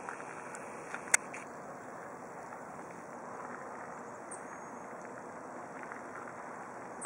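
Steady outdoor background hiss with one sharp click about a second in.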